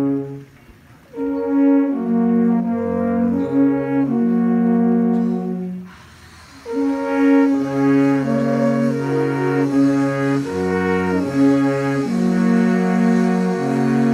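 A group of five alphorns playing together: long held notes in several parts at once, moving between chords, with two short breaths between phrases, one just after the start and one about six seconds in.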